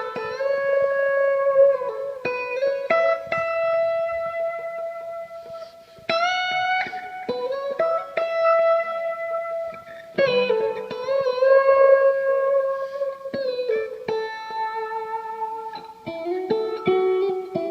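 Guitar playing slow, held single notes that glide up in pitch into the note and waver with vibrato, in phrases of a few seconds each.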